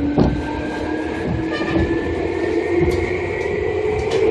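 Seibu 2000 series electric train running, its traction motor and gear whine rising steadily in pitch as it accelerates. A few clicks of the wheels over rail joints come through the running noise.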